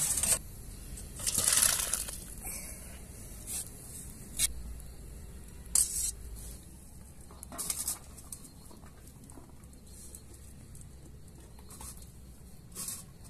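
Scattered short clinks and scrapes of a steel ladle and steel cookware, with a longer rushing noise about a second and a half in, over a low steady hum.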